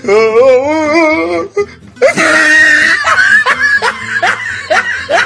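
A string of cartoon-style comedy sound effects. First comes a warbling, wobbling pitched voice-like tone. About two seconds in there is a loud, harsh shriek, followed by a run of short rising-pitched laugh-like calls, about two to three a second.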